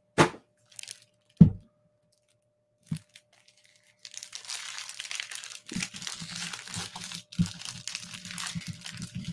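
A few knocks from a shipping box being handled, then from about four seconds in continuous crinkling and tearing of its packing as the box is opened.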